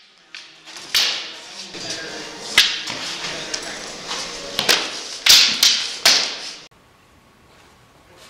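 Wooden sparring swords cracking against each other and against padded armour: a series of sharp, irregular clacks, the loudest a little past five seconds in. The sound cuts off suddenly about seven seconds in, leaving faint room noise.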